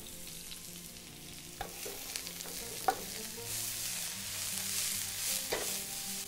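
Diced onion and sliced green chillies sizzling in hot olive oil in a frying pan, the hiss growing louder about halfway through. A wooden spoon knocks against the pan a few times.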